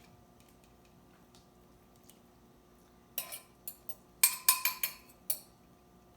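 A quick run of clinks and knocks of a kitchen utensil against a mixing bowl, starting about three seconds in after a quiet stretch, with a short ring after the louder hits.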